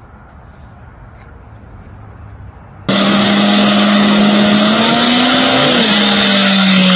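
Faint background for about three seconds, then suddenly a Chevrolet Monte Carlo SS's engine held at high, steady revs in a burnout, rear tires spinning and smoking. The pitch rises a little and then drops back near the end.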